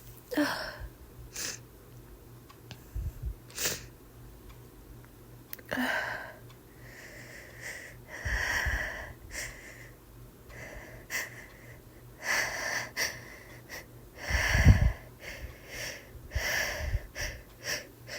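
A woman with a cold breathing in short, hitching catches, over and over, as a sneeze builds. One much louder burst comes near the end.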